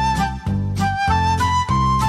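Background music: a melodic tune over a steady beat.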